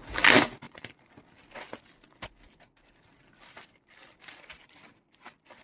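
Plastic courier packaging being opened by hand: a loud plastic rustle in the first half-second, then scattered crinkles as the clear plastic bag inside is handled.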